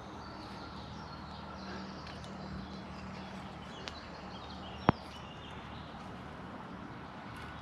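Steady outdoor background noise with a faint low hum and faint bird chirps, broken by one sharp click a little before five seconds in, the loudest sound, with a smaller click about a second before it.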